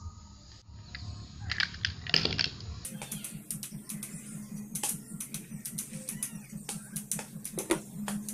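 Scattered light clicks and taps from parts being handled: broken plastic pieces of a rice cooker, then a rusted metal disc from its base. A steady low hum runs underneath.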